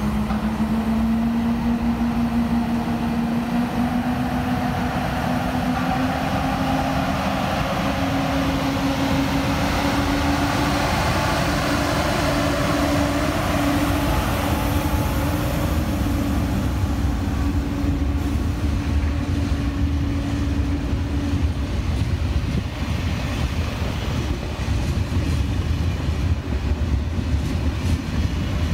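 A train at a station: a steady low rumble, with a motor whine that rises slowly in pitch for about twenty seconds and then drops out, while the rumble goes on.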